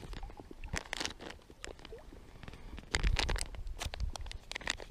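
Crinkling and crackling of a small plastic hook packet being handled and opened in the fingers, in short irregular bursts that grow louder, with a low rumble, about three seconds in.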